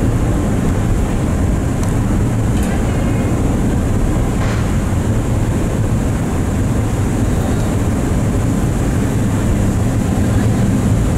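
Steady low rumble of a ferry's engines while the ship is being moored.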